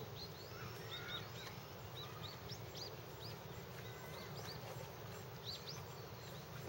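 Small birds calling: many short, high chirps that sweep up and down, scattered throughout, over a steady low outdoor rumble.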